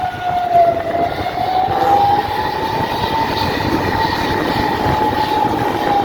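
Bus basuri horn sounding one long wavering tone that slides slowly up and down, over the rumble of traffic and engine.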